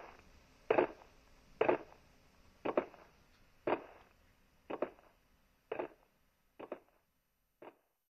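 Slow, heavy footsteps, about one a second, growing fainter as the walker goes away.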